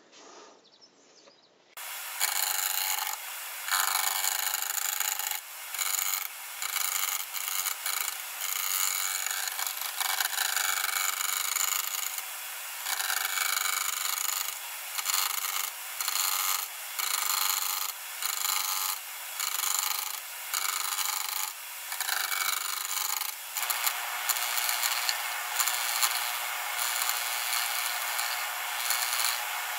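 Gouge cutting a spalted beech bowl blank spinning on a wood lathe, starting about two seconds in. It makes repeated passes with short breaks between them, then settles into one steady, unbroken cut with the lathe's hum beneath it about three-quarters of the way through.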